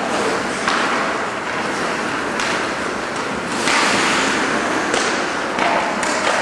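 Ice hockey play heard from the stands: a steady noisy scrape and hiss of skates on the ice, broken by several sharp knocks.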